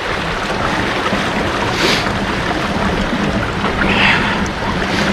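Mill-stream water rushing through a sluice gate, a loud steady rush with a faint steady low hum beneath it. Two brief louder hisses come about two and four seconds in.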